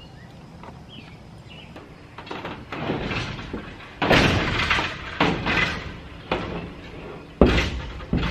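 Wooden A-frame mount knocking and scraping against a corrugated metal roof as it is moved, with several loud knocks in the second half.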